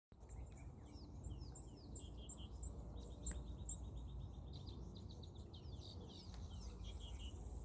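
Small birds chirping and singing, many quick high notes and trills overlapping, over a low steady rumble.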